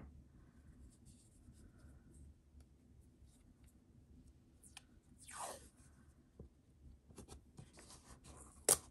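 Washi tape and printer paper being handled: faint scattered paper rustles and small ticks, a short rasp about five seconds in, and one sharp click near the end.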